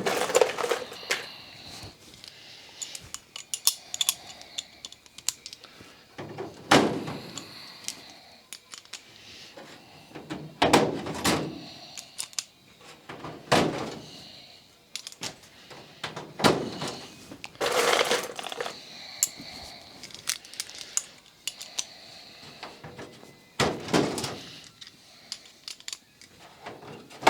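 Hand pop-rivet gun setting aluminium blind rivets one after another: a sharp snap roughly every three seconds, with light metallic handling clatter between.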